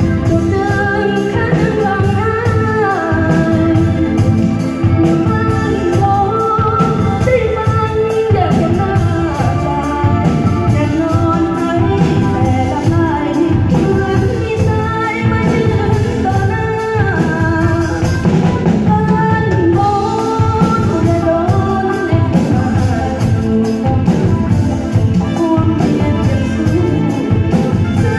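A singer with a band, the voice over instruments and a regular drum beat, loud and continuous, during a sound check.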